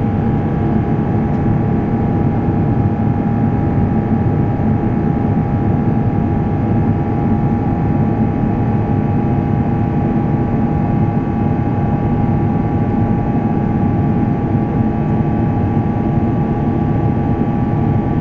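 Airbus A350 cabin noise from a forward window seat after takeoff: the Rolls-Royce Trent XWB turbofans and the airflow make a steady drone with a fixed whine on top, unchanging in level or pitch.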